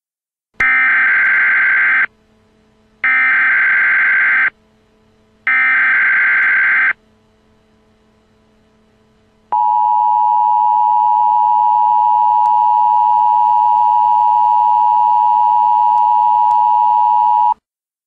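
Emergency Alert System tones: three short bursts of digital data (the SAME header), each about a second and a half long with a second's gap between them, then the two-tone attention signal, a steady harsh tone held for about eight seconds before it cuts off. Together they mark the start of an emergency alert message.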